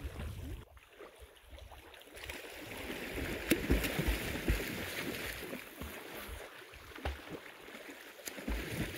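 Small lake waves lapping and washing on a pebble shore, with swimmers' splashing; the wash grows louder about two seconds in.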